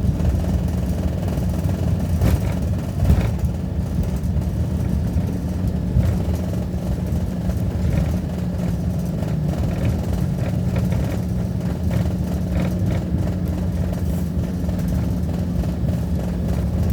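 Twin turboprop engines and propellers running at low power, heard from inside the passenger cabin while the aircraft taxis after landing: a steady low drone with a held tone. A few faint clicks come about two and three seconds in.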